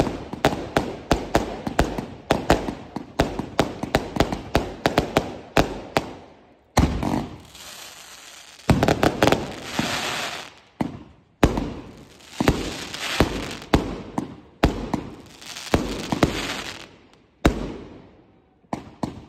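Aerial fireworks firing in quick succession. For about the first six seconds there is a rapid run of bangs and pops, several a second. After that, single shells burst about every two seconds, each followed by a hissing crackle that fades.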